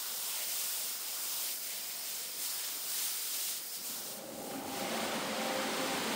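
Hiss of a hose-fed spray nozzle misting cleaning solution onto a wet rug. About four seconds in it gives way to the steady motor hum of a single-disc rotary scrubbing machine brushing the foamed rug.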